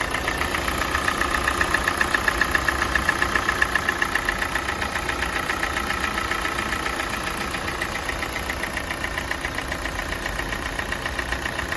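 Kia Sportage's G4NA 2.0-litre four-cylinder engine idling while warming up, with a rapid, regular ticking knock over the running, a little louder in the first few seconds. The owner says this knock grows as the engine warms, was not there at start-up, and does not sound like piston knock.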